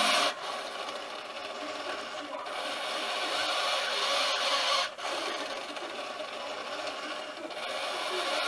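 Large model-boat sail-winch servo of a homemade ventilator running, winding its cord in and out to squeeze and release a bag-valve-mask (Ambu bag). A steady gritty mechanical noise that breaks off briefly about every two and a half seconds, with each stroke of the arm.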